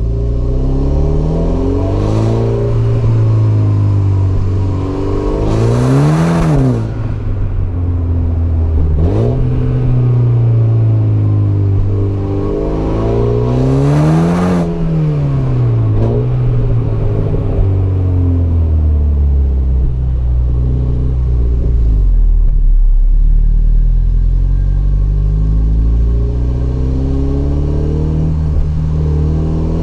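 Mini Cooper S's 2.0-litre turbocharged four-cylinder engine revving and accelerating. The pitch rises to high revs twice, about 6 and 14 seconds in, with a hiss at the top each time, and falls back. After that it runs steadier, with slow rises and falls in pitch.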